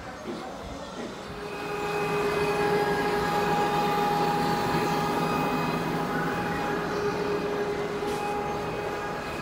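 Train sound played over a model railway layout's sound system: a steady pitched drone with several overtones that grows louder about a second and a half in and then holds.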